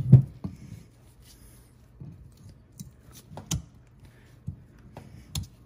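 A few scattered light metal clicks and knocks as a Jeep Wrangler JK front brake pad's steel backing plate is handled and fitted against the caliper bracket and its spring clips, the loudest right at the start, over a faint steady low hum.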